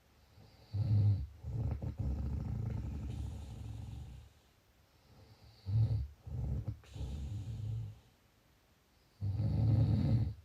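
Snoring: three slow rounds of low snores, each a short snore followed by a longer one, with quiet gaps between.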